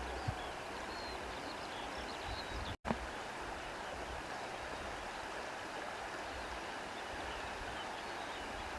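Flowing stream water, a steady even rush, with a few faint high chirps in the first seconds. The sound cuts out completely for an instant just before three seconds in.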